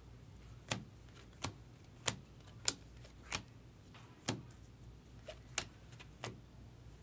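Baseball trading cards flicked one at a time through a pack in the hands, each card giving a short sharp snap, about nine snaps at roughly two-thirds of a second apart.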